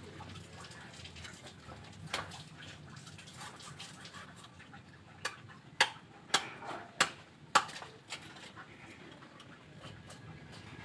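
Light splashing of water in a tub as hands work in it, with a run of sharp knocks and clicks, the loudest about five to eight seconds in.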